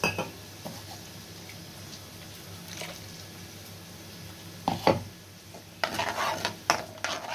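A steel spoon stirs and scrapes tomato purée around an oiled kadhai, which sizzles faintly. The scrapes come in a bunch about five seconds in and again from about six to seven seconds, over a low steady hum.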